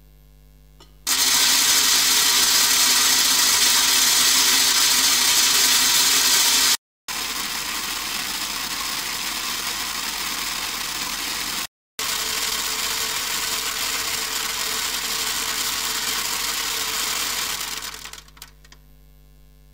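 A steady test shower falling on a corrugated aluminium sheet, heard in three runs: first on the bare sheet, loud and hissing; then, after a short break, about 10 dB quieter on the sheet fully damped with acoustic tape; then on the partly damped sheet, a little louder than fully damped, fading out near the end.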